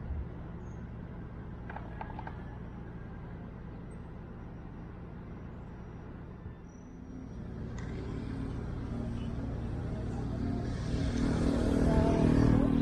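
Engines running: a steady low hum throughout, joined about seven seconds in by a second engine that grows louder toward the end and then fades.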